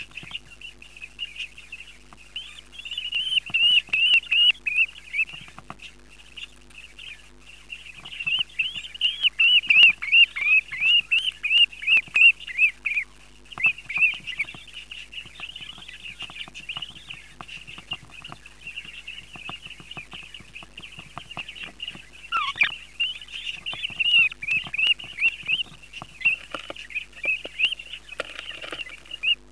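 Budgerigar chicks begging while being fed by a parent: rapid, high-pitched cheeping in runs of a few seconds with short pauses between, loudest about ten seconds in.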